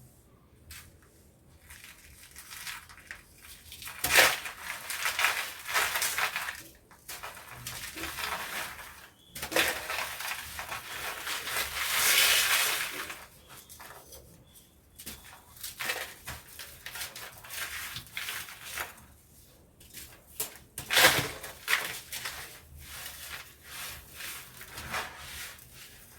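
Dry pure-cement blocks crumbling: gritty crunching and crackling. There is a sharp break about four seconds in and another a little past twenty seconds, with a longer stretch of steady grinding near the middle.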